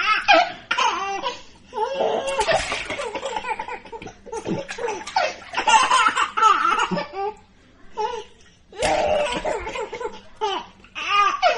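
A small child laughing in repeated bursts of high-pitched laughter, with short pauses between them.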